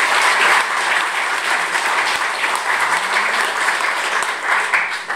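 Audience applauding, a dense spread of many hands clapping that begins to die away near the end.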